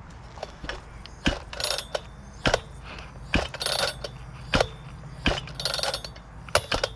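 Small two-stroke chainsaw's recoil starter pulled repeatedly, about six pulls roughly a second apart, each a sharp click and a short rattling whirr of the rope. The engine does not fire or catch.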